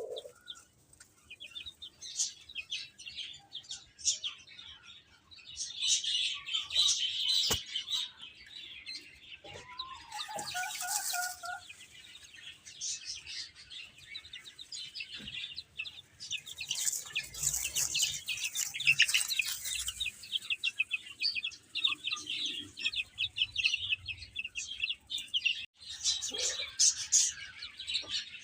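Baby chicks peeping nonstop, many quick high-pitched chirps overlapping one another.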